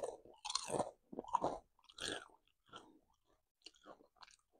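A person chewing a mouthful of crunchy potato chip: irregular crunches for about two seconds, thinning to a few faint crunches near the end.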